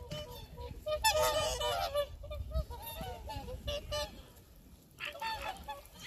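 A flock of whooper swans calling, many honking calls overlapping, loudest about a second in, thinning out for a moment near the end before picking up again.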